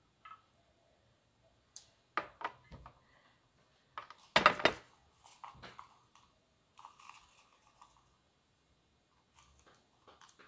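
Scattered knocks and clinks of glassware being handled on a glass-topped table, with one louder sharp knock about four and a half seconds in.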